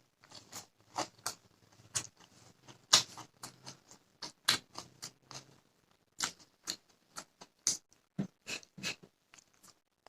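Close-up eating sounds of a person chewing a meal of fish and rice: irregular wet mouth smacks and clicks, with a short pause about two thirds of the way through.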